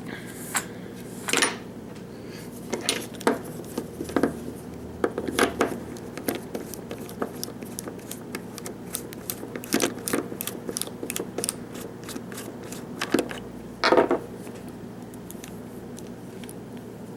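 Irregular metallic clicks and clinks of a small padlock and picking tools being handled, busiest about two-thirds of the way through, with one louder knock near the end, over a steady low hum.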